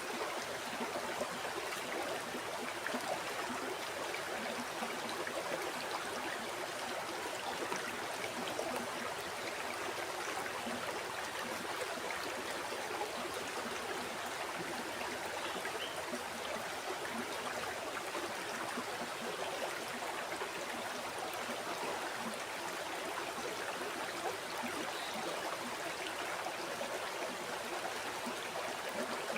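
Flowing river: a steady rush and gurgle of water over stones, even throughout.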